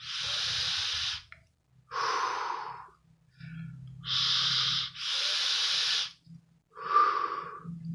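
A man breathing hard through his mouth: about six breaths, blowing out and drawing in by turns. He is practising the inhale drill for vaping with the coil not fired, so there is no coil sizzle.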